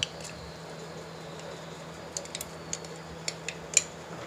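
Spoon and plastic tub clicking and tapping against a glass blender jar as ice cream and cream are scooped in: a click at the start, then a quick run of short, sharp ticks from about two seconds in, the loudest near the end, over a low steady hum.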